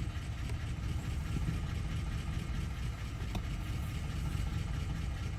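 An engine idling with a steady low rumble, and one faint small metal tap about three seconds in.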